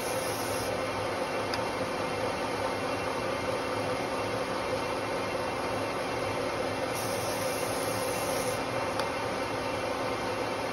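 Metal lathe running, spinning a large electric motor armature for turning its copper commutator: a steady machine hum and hiss. A brighter high hiss comes briefly at the start and again about seven seconds in.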